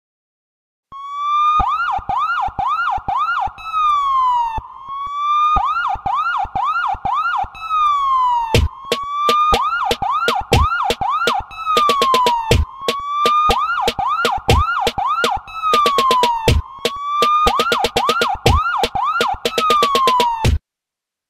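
Electronic siren sound: a rising wail, four quick yelps and a falling sweep, repeating about every four seconds, with drum hits layered in and much louder from about eight seconds in. It starts about a second in and cuts off just before the end.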